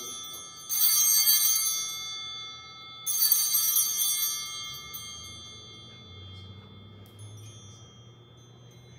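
Sanctus bells rung at the altar, two rings about a second in and about three seconds in, each with a bright, jangling ring that fades slowly over a couple of seconds. The ringing marks the elevation of the consecrated bread at the Eucharist.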